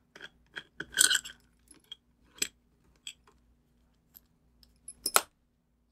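Small plastic parts of a solar motion-sensor light handled and pulled apart by hand: scattered light clicks and clatter, a small cluster about a second in and the loudest clicks just after five seconds, over a faint steady hum.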